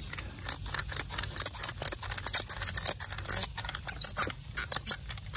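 Ratchet strap being cranked, its ratchet clicking in rapid, uneven runs as it tensions woven-wire fence tight.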